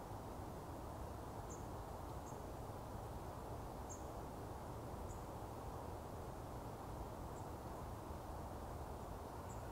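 Quiet riverside ambience: a steady low rush, with about six faint, short high chirps scattered through it.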